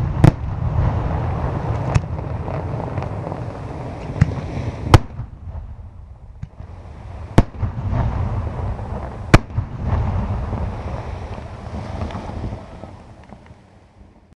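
Aerial fireworks display: sharp bangs of bursting shells every couple of seconds over a continuous rumble and crackle, fading away near the end.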